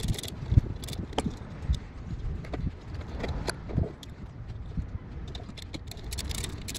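Irregular clicks, taps and knocks of hands working at a diesel heater's battery tray, handling the tray and its wiring to reconnect the battery.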